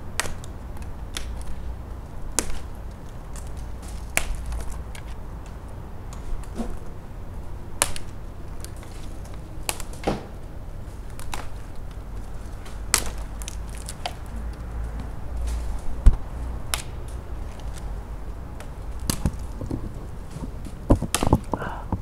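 Bare, dry persimmon branches and twigs snapping and knocking as they are pushed and bent by a gloved hand: about a dozen sharp cracks at irregular intervals, the loudest about two-thirds of the way through and several close together near the end, over a low steady rumble.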